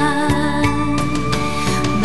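Instrumental passage of a pop-song arrangement between sung lines: sustained chords over a bass line that changes note about once a second.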